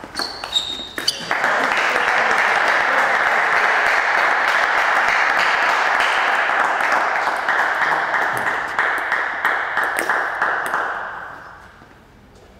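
A few table tennis ball hits end a rally, followed by applause from a small crowd of spectators for about ten seconds. The applause thins to scattered claps and dies away near the end.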